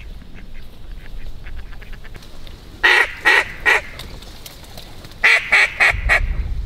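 Duck quacks: a loud run of three short quacks, then about two seconds later a run of four, over fainter scattered quacking and low wind rumble.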